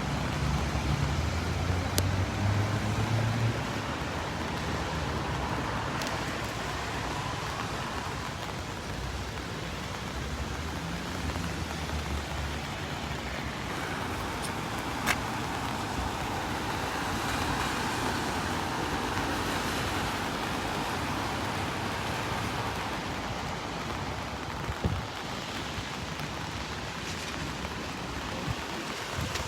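Steady hiss of rain mixed with road traffic, with a few brief clicks.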